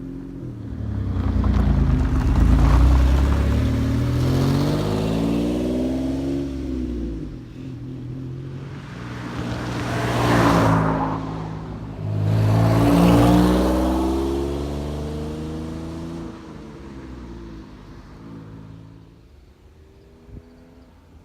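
1993 Mitsubishi 3000GT SL's 3.0-litre V6 and exhaust revving as the car accelerates, the pitch rising and falling several times. It is loudest about 3 s and 13 s in, then dies away near the end. A downpipe leak has been patched with exhaust tape and a clamp, and a small leak remains at the front.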